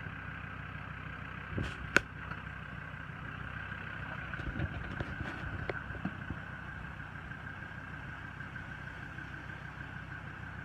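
4WD engine running at low revs on an off-road track, with a steady high whine over it. A sharp click about two seconds in and a few lighter knocks a little later.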